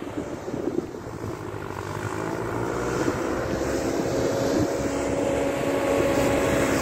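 1948 Ford 8N tractor's four-cylinder engine running as the tractor drives toward the microphone, growing steadily louder. Wind buffets the microphone in the first second or so.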